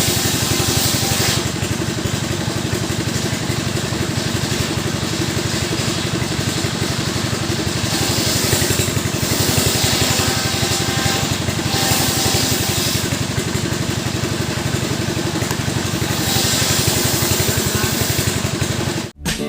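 STIHL two-stroke chainsaw engines running at high speed, the sound brightening and dulling every second or two. It cuts off abruptly near the end.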